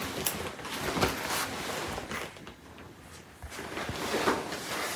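Oversized leather jacket rustling and creaking as the wearer moves her arms in it, a run of soft brushing and crinkling noises that eases off for a moment about halfway through.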